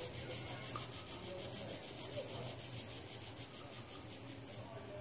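Quiet outdoor ambience: a low steady hum under a soft, even rustling noise.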